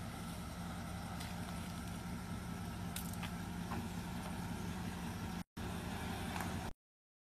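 Pickup truck engine running at low speed while reversing slowly with a boat trailer, a steady low hum with a few faint clicks. The sound cuts out to silence briefly about five and a half seconds in and again near the end.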